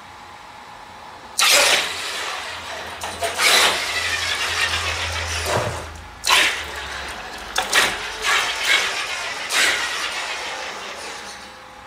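Traxxas X-Maxx electric RC monster truck driven in short bursts of throttle on a concrete floor: the motor and drivetrain whir and the tyres scrub, surging about five times.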